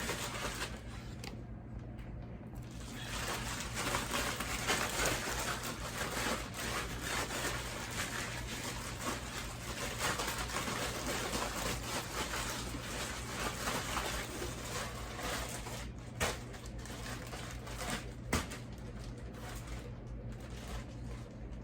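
Raw chicken breasts being shaken with dry rub in a plastic bag to coat them, a rustling, shifting noise with a couple of sharp knocks near the end.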